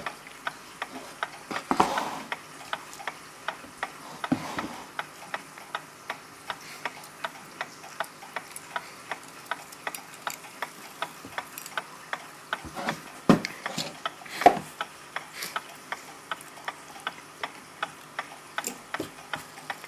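A clock ticking with a steady, even beat, broken by a few louder knocks as the brass clock movement is handled and set into a wooden test stand.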